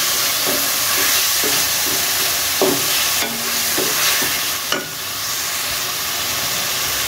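Onions, green chilli paste and freshly added chopped tomatoes sizzling in hot ghee in a metal pot, with a wooden spatula scraping and knocking against the pot as they are stirred. The stirring stops about five seconds in, leaving a steady sizzle.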